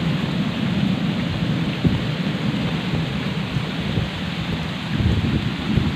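Heavy rain in a windy storm pouring steadily onto the hut and its plastic sheeting, under a continuous low rumble, with a sharper thud about two seconds in.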